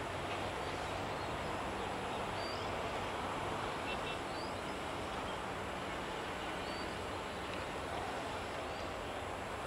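Diesel locomotive approaching slowly at a distance, its engine a steady low drone, with a few short bird chirps above it.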